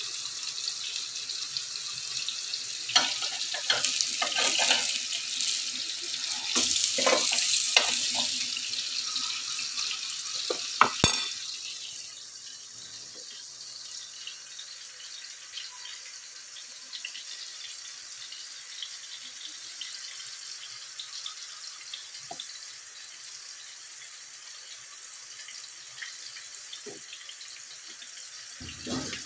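Food frying in oil in pans on a stove: a steady sizzling hiss with scattered crackles and pops. It is louder for the first ten seconds or so, then softer after a sharp click about eleven seconds in.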